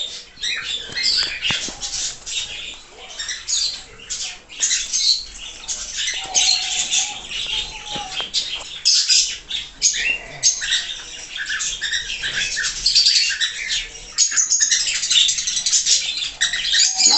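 A flock of small birds calling while feeding: many short chirps and squawks overlapping without pause, getting busier and louder in the last few seconds.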